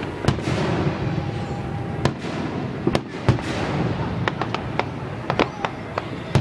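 Fireworks going off in quick succession: about fifteen sharp bangs at irregular intervals over continuous crackling.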